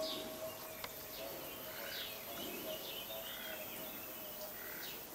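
Small birds chirping, with short high falling chirps about once a second and softer lower notes between them, over a faint steady drone. One sharp click comes a little under a second in.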